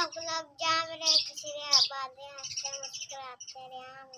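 Birds chirping continuously, with a child's high voice in short pitched phrases alongside.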